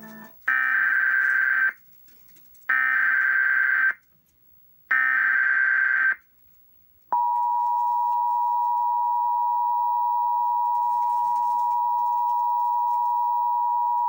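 Emergency Alert System header: three bursts of SAME digital data tones, each just over a second long, followed about seven seconds in by a steady attention tone. Together they mark the start of a broadcast alert, here a coastal flood warning.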